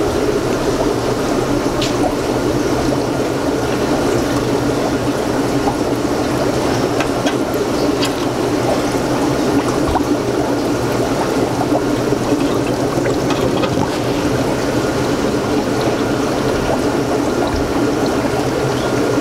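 Steady bubbling and trickling of water from aquarium filters and air lines, over a constant hum, with a few faint clicks.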